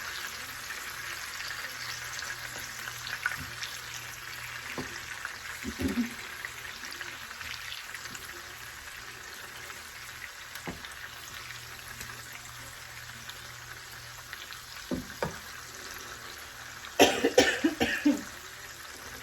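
Butter and olive oil sizzling gently in a pan with roasted garlic, with a few clicks of the stirring utensil against the pan. Near the end a person coughs several times.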